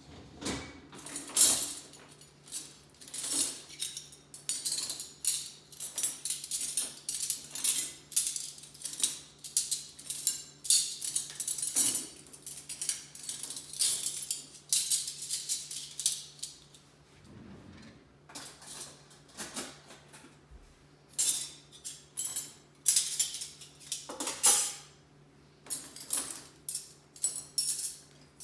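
Dishes and cutlery clinking and clattering as they are unloaded from a dishwasher and put away, in quick runs of sharp clinks with a short lull about two-thirds through. A faint steady low hum runs underneath.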